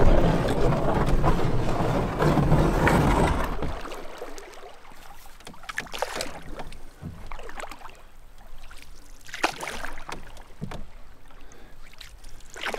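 Canoe paddle strokes in the water, about one every three seconds. A rush of wind on the microphone covers the first few seconds.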